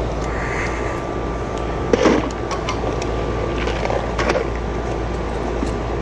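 A 4-ton R-410A outdoor AC condensing unit running steadily, with its compressor and condenser fan making a constant hum and rush. A few short knocks of brass hose fittings being handled come about two and four seconds in.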